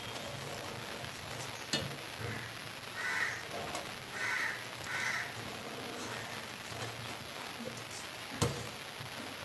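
A crow cawing three times, over the steady hiss of the simmering pot. A steel spoon clinks sharply against the aluminium pot twice.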